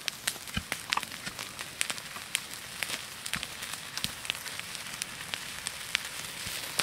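Incendiary filling from an ampulomet's glass ampoule burning in dry grass, crackling and popping irregularly over a steady hiss.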